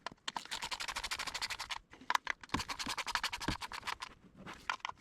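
Ratchet clicking rapidly in two runs while tightening the T30 Torx bolts that hold down the fuel rail on a 3.6 Pentastar V6, with a couple of louder knocks in the second run.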